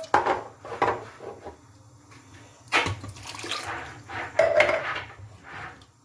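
Utensils clinking and scraping in a pot or bowl with some liquid sloshing, in bursts, as banga is worked with hot water. A short steady high tone sounds about four and a half seconds in.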